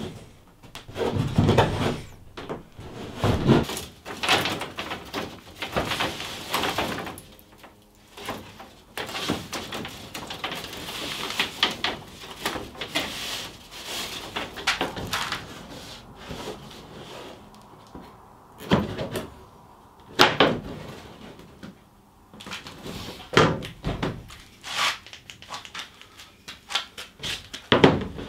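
Hand woodworking on a cedar-strip canoe: a small carving chisel scraping and paring the cedar, with irregular knocks and clatter of thin wooden strips being handled. The sounds come in uneven bursts, with a rasping stretch in the middle.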